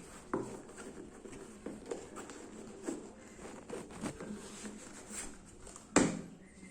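Handling noises: scattered light taps, clicks and rustles, with one sharp, louder knock about six seconds in, as futsal shoes and their box are handled.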